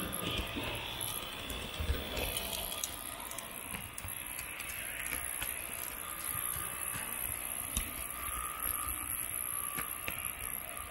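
H0 model train carrying a camera, running along the track: a steady high motor whine with small wheels clicking and rattling over rail joints and points.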